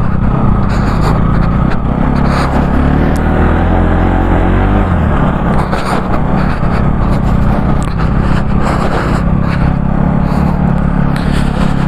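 Motorcycle engine running steadily at low speed, its low note shifting about five seconds in.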